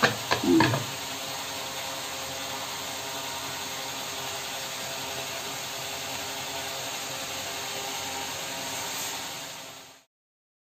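Steady hiss of nippattu discs deep-frying in hot oil in a kadai, with a few brief knocks and a short squeak from handling the hand-lever appalam press near the start. The sound cuts off abruptly just before the end.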